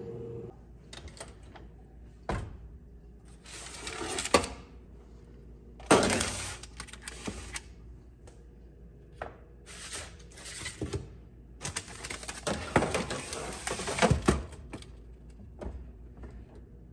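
Metal sheet trays and oven racks knocking and scraping, with parchment paper rustling, as trays of pretzels are loaded into an oven. The sounds come as several separate knocks and short stretches of rustling, the busiest about six seconds in and again from about twelve to fourteen seconds in.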